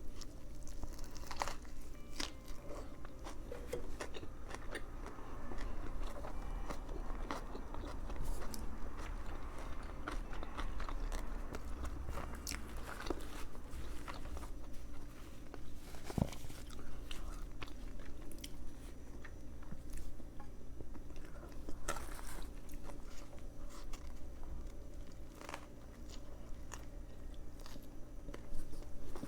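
A person biting and chewing a veggie patty sub sandwich, with frequent small crunches and clicks throughout.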